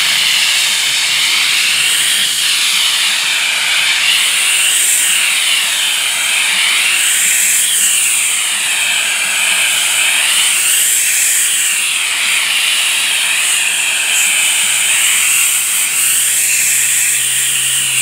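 McCulloch handheld steam cleaner with no nozzle tip, jetting pure steam straight into a seat belt: a loud, steady hiss whose pitch slowly wavers.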